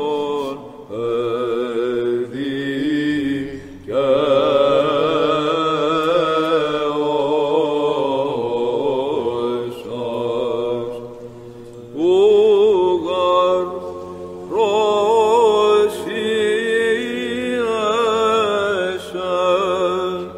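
Byzantine chant: male monastic chanters singing a sticheron idiomelon in Greek, a wavering, ornamented melody over a steady held drone (ison), in several phrases with short breaks between them.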